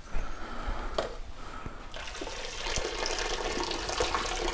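Hot cooking water pouring from a stainless steel pot into a kitchen sink as boiled rutabaga, carrot and potato are drained for mash. There is a single knock about a second in, and the pouring starts about two seconds in and grows steadier.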